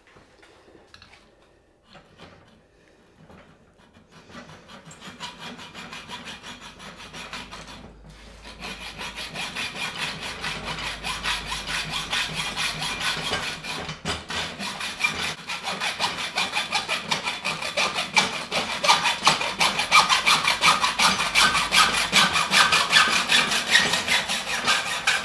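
Hacksaw cutting through 20 mm steel conduit clamped in a pipe vise: a few faint clicks, then steady back-and-forth saw strokes that start about four seconds in and grow louder.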